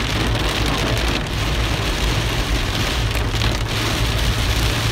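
Heavy rain pelting the car's roof and windshield, heard from inside the cabin as a steady, dense hiss over a low rumble of the moving car.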